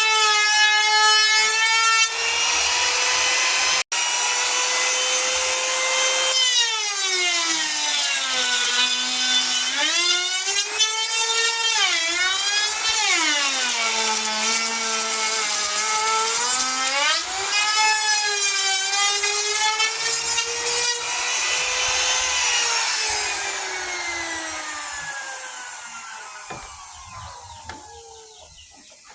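An electric woodworking power tool running and cutting wood. Its motor whine sinks sharply in pitch each time the cut loads it and climbs back as it frees. Near the end it is switched off and winds down with a falling, fading whine.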